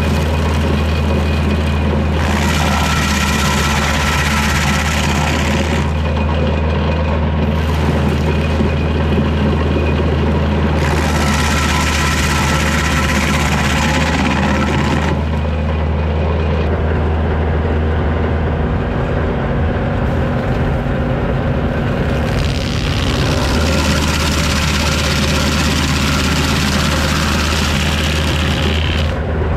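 Tractor's diesel engine running steadily at working speed, driving a PTO stump grinder. Three spells of harsh grinding, each a few seconds long, come as the cutter wheel is swung into a red pine stump and chews it into chips.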